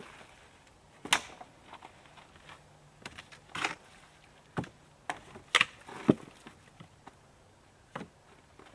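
Wooden boards knocking and clattering as they are laid onto a lean-to shelter frame: a string of separate sharp knocks at irregular intervals, the loudest a little over a second in and again around the middle.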